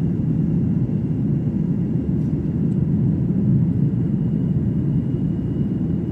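Steady low rumble of an airliner's engines and airflow heard from inside the passenger cabin during the climb after takeoff, with a faint steady high whine.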